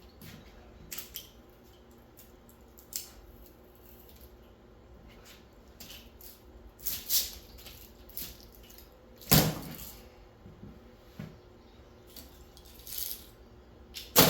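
Clean ACR (copper-tube, aluminium-fin air-conditioner coil) being bent and folded over by hand: scattered short metallic creaks and clicks, with one louder knock about nine seconds in.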